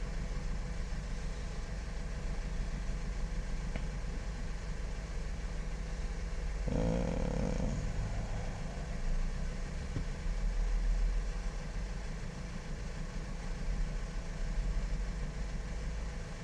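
Car engine idling steadily with a low rumble, with a short louder sound about seven seconds in.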